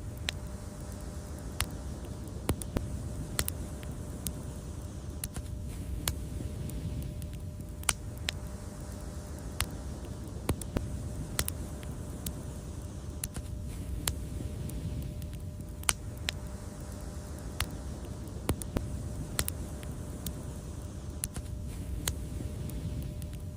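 Wood fire crackling: sharp, irregular pops and snaps, about one or two a second, over a steady low rumble of the burning fire.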